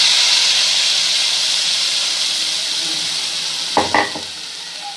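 Tomato purée hitting hot oil with mustard seeds and curry leaves in a kadai, sizzling loudly; the sizzle slowly dies down as the purée covers the oil. Two short sharp knocks come near the end.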